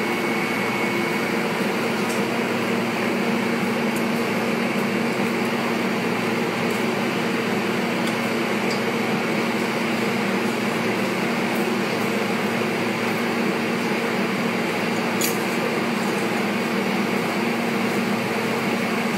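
Mould laser welding machine running: a steady mechanical hum with several low steady tones, and a few faint clicks.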